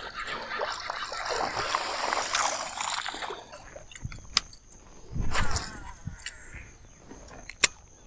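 Water splashing and sloshing for about three seconds as a fishing lure is pulled across the river surface, then a louder burst about five seconds in and scattered sharp clicks.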